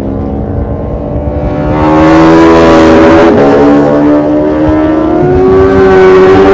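Two racing motorcycles at high revs, coming closer and growing louder about two seconds in, the engine pitch shifting and dropping as they go by.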